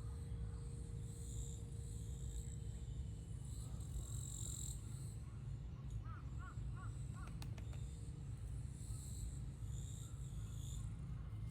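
Outdoor ambience with a steady low rumble and birds calling, including a quick run of four short calls about six seconds in.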